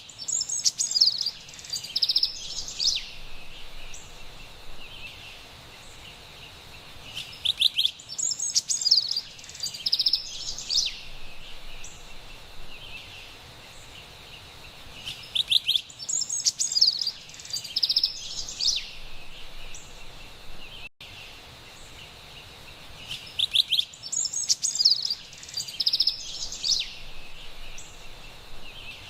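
Carolina wren singing: a burst of quick, high chirps and trills lasting about three seconds, the same phrase returning about every eight seconds over a faint steady hiss.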